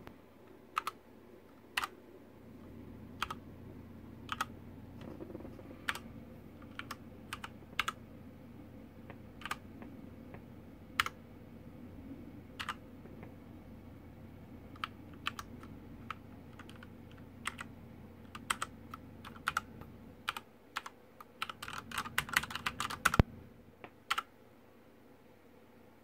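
ASUS ROG Claymore mechanical keyboard: single keys pressed one at a time, clicking about once a second, then a quick flurry of keystrokes near the end.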